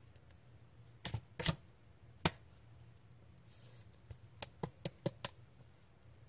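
Trading cards being handled and flipped through: a few sharp clicks and snaps as cards are set down, with a quick run of them about two-thirds of the way in and a brief soft slide of card on card.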